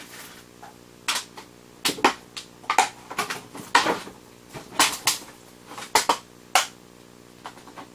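Irregular sharp clicks and plastic crackles: fingernail clippers snipping at a zip tie holding a doll inside its clear plastic packaging.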